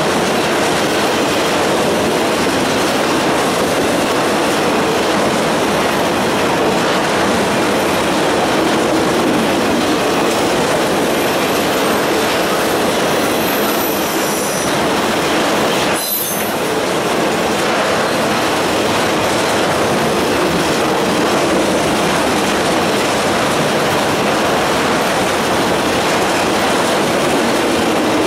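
Freight train cars rolling past, a steady rumble and clatter of wheels on rail, with thin high-pitched wheel squeal near the middle. The sound drops off sharply for a moment a little past halfway, as at a gap between cars.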